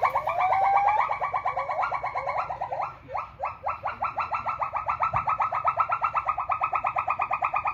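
An animal's loud, continuous rapid trill of about ten pulses a second, with a short rising whistle at the start and a brief dip about three seconds in.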